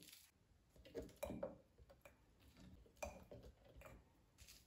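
Faint clicks and crackles of a dishwasher tablet being unwrapped from its film and broken into pieces on a wooden cutting board.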